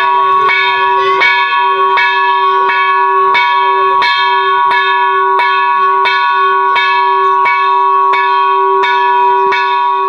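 Large hanging temple bell rung by its rope, the clapper striking about one and a half times a second in an even rhythm. Each stroke rings on into the next, so the bell's deep hum and bright upper tones sound without a break.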